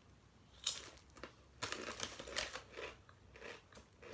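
Plastic crisp packet crinkling in the hands, with irregular sharp crackles starting about half a second in.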